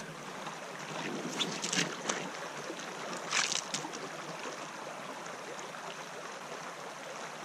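Steady rush of a creek running into a lake, with a few short noises about a second and a half in and again near three and a half seconds.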